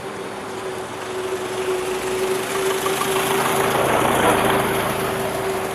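Vintage car driving past: its engine and road noise build to a peak about four seconds in, then start to fade, over a steady engine hum.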